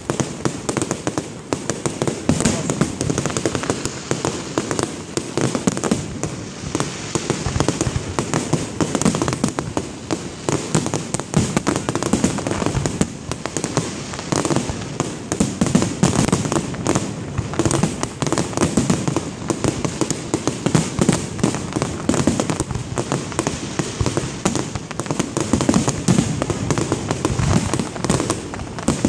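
Aerial fireworks display in a dense barrage: shells bursting in rapid, overlapping bangs and pops with no pause.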